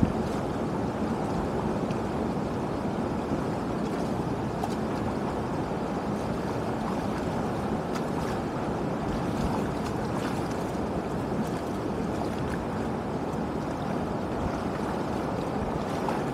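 Steady rush of shallow water draining through a breach now cleared of clogging floating plants, with a few light splashes of wading footsteps.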